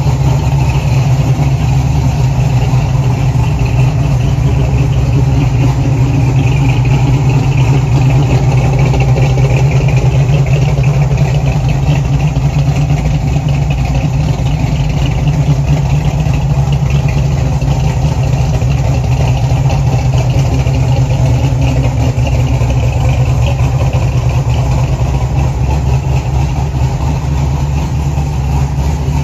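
1969 Chevrolet Camaro's 383 stroker V8 idling steadily.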